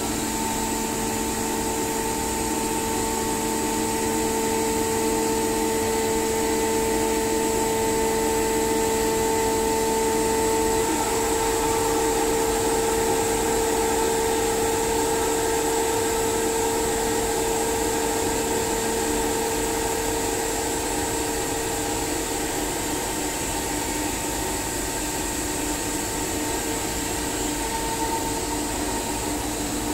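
SCR Comp SCR50M rotary screw air compressor running steadily: an even hum of a few fixed tones under a constant high hiss.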